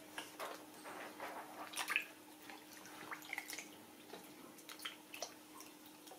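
Faint water splashing and dripping as a sheet of printed cotton fabric is swished and lifted in a shallow plastic tub of rinse water, with small irregular splashes and drops.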